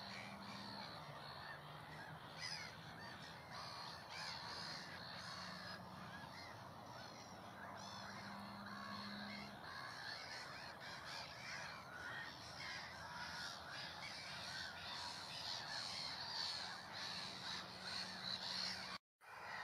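A continuous background chorus of many birds calling over one another, over a low steady hum. The sound cuts out completely for a moment near the end.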